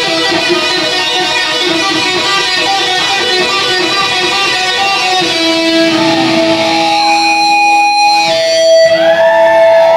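Electric guitar solo through an amplifier: quick runs of notes, then from about halfway long held notes that ring on, with bent notes sliding up and down near the end.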